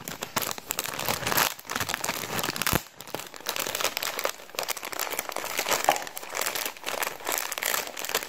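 Thin clear plastic bag crinkling as it is handled and pulled at, a dense run of irregular crackles.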